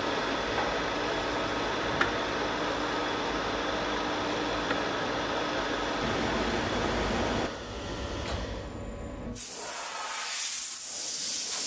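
SIP Hydroptic No 6 jig borer running a face mill at 210 rpm through a light 0.1 mm skim cut across a welded metal plate: a steady machining noise with a faint steady tone, which drops away about seven and a half seconds in. From about nine and a half seconds, the loud hiss of a compressed-air blow gun blowing swarf off the plate.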